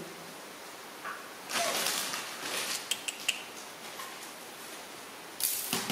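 Rustling and crinkling of a disposable diaper being handled: a longer burst about a second and a half in, with small clicks, and a short, louder burst near the end.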